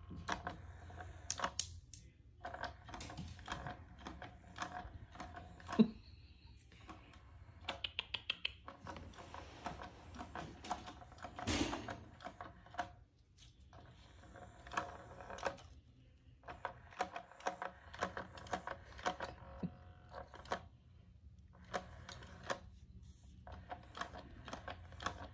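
Battery-powered interactive cat toy running in spells of a few seconds: its motor whirs with a steady whine under a rapid rattle of plastic clicks, stopping for a second or so between spells.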